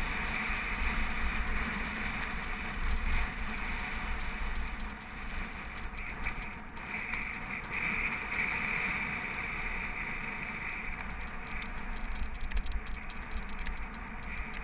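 Mountain bike rolling along a dirt fire road, heard from a camera mounted on the bike or rider: a steady rumble of wind on the microphone and tyres on dirt, with the bike rattling over bumps, more often in the second half.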